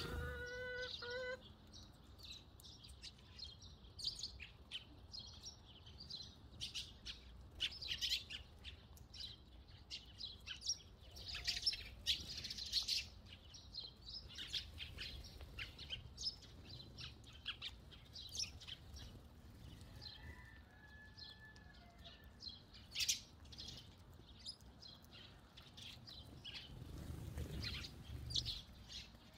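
Eurasian tree sparrows chirping in many short, quick calls, with a chicken's drawn-out pitched call in the first second and a fainter chicken call about twenty seconds in.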